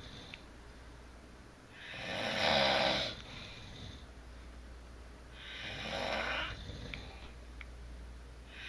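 A sleeping adult snoring: two long snores about four seconds apart, the first the louder, with the next one starting near the end.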